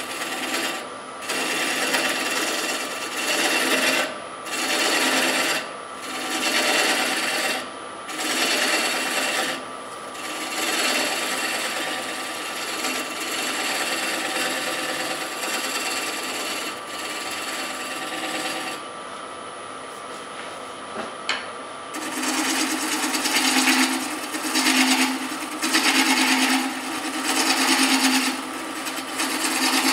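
Hand-held turning tool scraping and cutting into an oak blank spinning on a wood lathe, in repeated bursts of a second or two, with one longer unbroken cut in the middle and a short lull after it. A steady whine from the lathe runs under the cutting.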